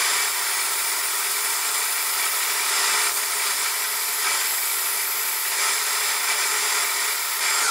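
Abrasive cloth pressed against a welded steel part spinning in a metal lathe, cleaning up the weld: a steady abrasive hiss over the running lathe.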